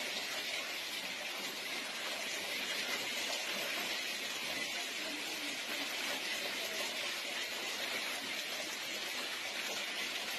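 Hail falling onto a street and parked cars, making a steady, dense hiss of many stones striking.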